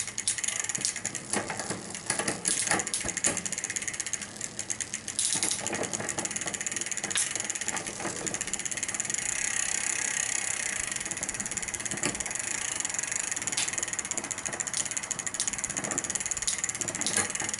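A bicycle chain running over the rear cassette and derailleur as the pedals are turned by hand, a steady whir with scattered clicks and ratcheting as a new twist-grip shifter moves the chain from gear to gear during a shifting test.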